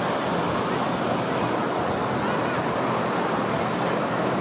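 Steady rushing outdoor noise with a faint murmur of voices from a large crowd of pilgrims walking on the courtyard.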